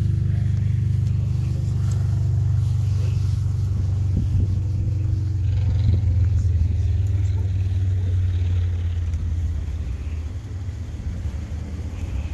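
Chevrolet Camaro's engine idling: a steady low exhaust rumble that fades over the last few seconds.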